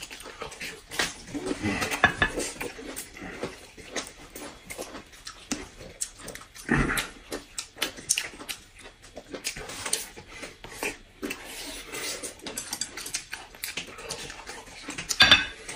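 Close-up chewing and lip-smacking of people eating soft steamed buns: irregular wet mouth clicks throughout, with a louder mouth sound about seven seconds in and another near the end.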